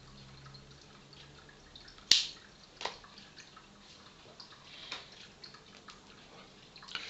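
Puffing on a Butz Choquin tobacco pipe: a few sharp, wet clicks and lip smacks at the stem, the loudest about two seconds in.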